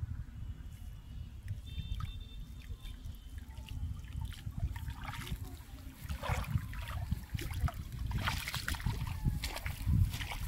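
Water splashing and dripping as a wet cast net is hauled up out of shallow pond water and gathered in by hand, with sloshing from wading legs; the splashing grows busier about halfway through. A low rumble runs underneath.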